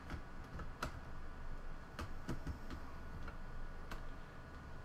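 A handful of light, irregular clicks and taps as a plastic laptop battery pack and its ribbon cable are handled and set down into the opened laptop chassis.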